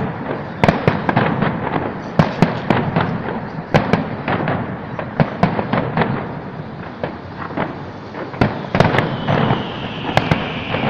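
Fireworks display: a rapid, irregular string of sharp bangs and cracks from aerial shells bursting, with a steady hiss coming in near the end.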